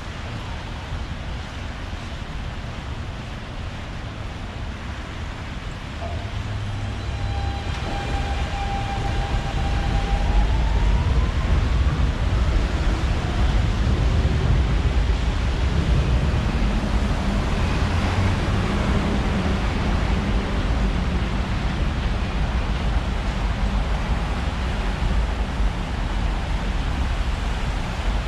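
New York City subway train pulling out of an elevated station: its electric traction motors whine, rising in pitch as it accelerates, over a low rumble of wheels on the elevated track structure that builds and stays loud.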